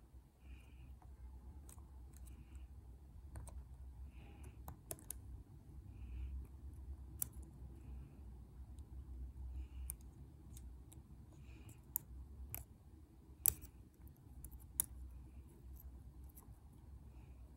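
Lock pick and tension wrench working the pin tumblers of a lock, giving irregular small sharp clicks as the pins are lifted and set. A soft regular tick about once a second and a low hum sit underneath.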